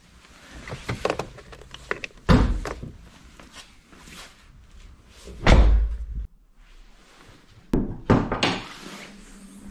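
A small VW hatchback's car door: a few clunks and knocks, with a heavy, deep thud about halfway through and more knocks near the end as the door is handled and pushed shut.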